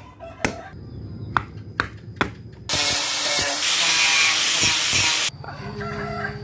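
A steel chisel chopping into a wooden block, four sharp knocks about half a second apart. Then an electric angle grinder cuts through a green bamboo pole for about two and a half seconds and stops suddenly. A chicken calls near the end.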